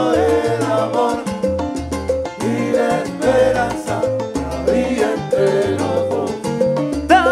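Salsa band playing, with trumpet lines over keyboard, a stepping bass line and conga and percussion hits.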